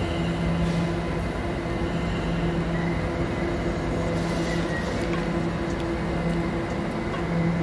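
London Overground Class 710 electric multiple unit at the platform: a steady electric hum with a constant low tone over even background noise.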